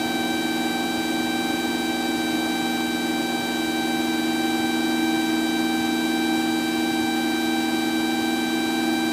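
Cabin drone of a Cessna 172SP in flight: its four-cylinder Lycoming engine and propeller running steadily under a hiss of airflow. The hum holds several steady tones and does not change in pitch or loudness.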